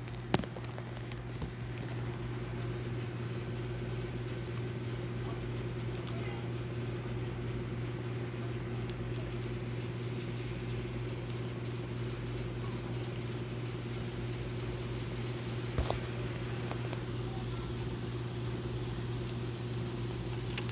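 A steady low mechanical hum, with a couple of brief clicks, one near the start and one about sixteen seconds in.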